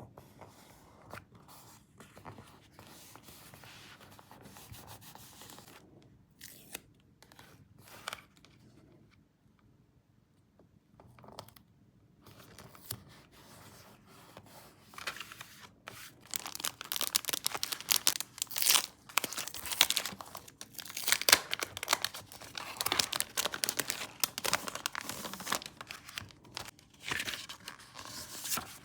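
Paper being handled and torn: soft rustles and small clicks at first, then louder, dense crackling and tearing from about halfway through.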